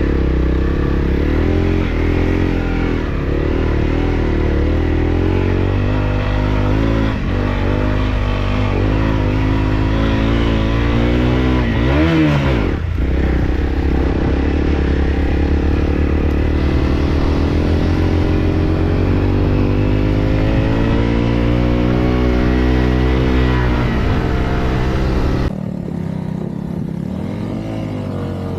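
Off-road motorcycle engine running and revving, its pitch climbing and falling as the throttle opens and closes, with one quick sharp rev about midway. Near the end the engine sound drops off suddenly to a quieter, thinner level.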